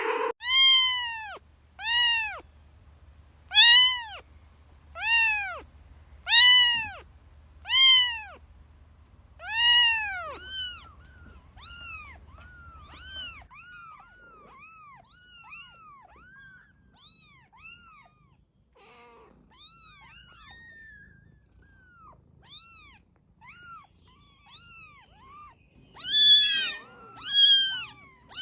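Kittens meowing over and over: a run of loud, drawn-out meows about a second and a half apart, then a long stretch of fainter, shorter mews, and loud meows again near the end.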